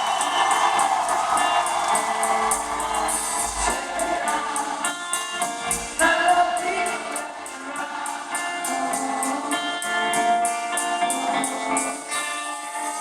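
Live rock band playing with singing, recorded from the audience in a hall. A cymbal keeps a steady beat of about four ticks a second under sustained guitar and vocal lines.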